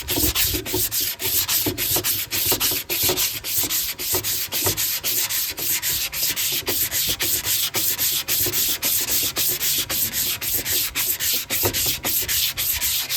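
Hand block-sanding of body filler over a dent on a motorcycle gas tank with 150-grit sandpaper, evening out the filler. Rapid, even back-and-forth rasping strokes, about four a second.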